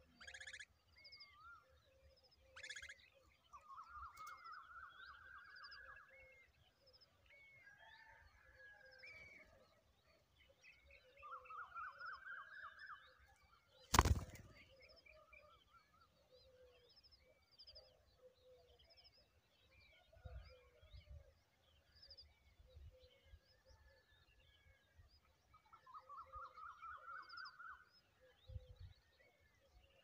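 Birds calling: many short high chirps throughout, and three fast chattering trills of about two seconds each, rising slightly in pitch. A single sharp click about halfway through is the loudest sound.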